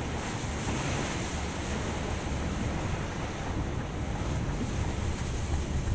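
Steady rush of heavy rain and water spray from a Scania coach's tyres driving through floodwater, heard from inside the cab, with a low rumble underneath.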